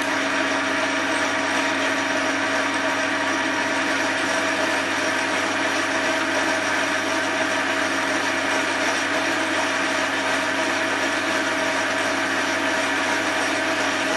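Small metal lathe running steadily at 660 rpm on fine power feed, its gears whirring with several steady tones, as a carbide insert takes a turning cut along a stainless steel bar.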